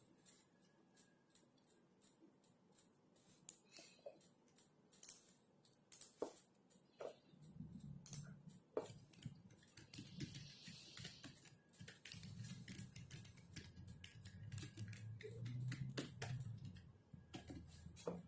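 Soft, irregular key clicks of typing on a computer keyboard. A low hum comes in partway through and is louder in the second half.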